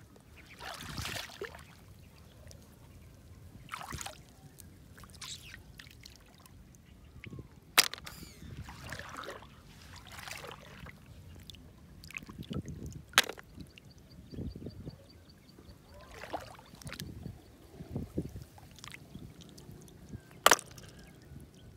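A hand splashing and sloshing in shallow water while gathering snails, with water dripping and trickling off. Three sharp clicks of snail shells knocking into the plastic bucket stand out as the loudest sounds.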